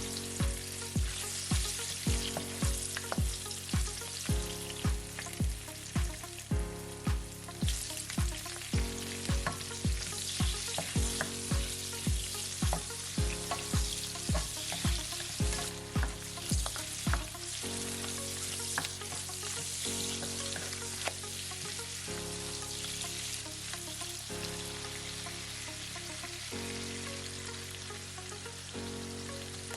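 Food sizzling in a hot pan as it is stir-fried, a steady frying hiss. It plays under background music with a steady beat of about two thumps a second that drops out about two-thirds of the way through, leaving sustained chords.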